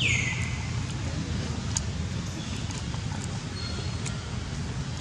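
Steady low hum with outdoor background noise and a few faint clicks, opened by a short swoosh falling in pitch, an edit transition effect.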